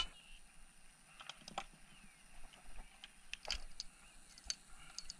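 Faint, scattered clicks and taps from hands handling a caught fish and fishing tackle, with the sharpest tap about three and a half seconds in.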